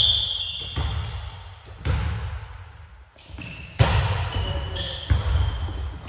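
A referee's whistle blows at the start and fades within the first second. Then come the sharp thuds of a volleyball being served and hit during a rally, with players' sneakers squeaking on the hardwood gym floor, the squeaks thickest in the second half.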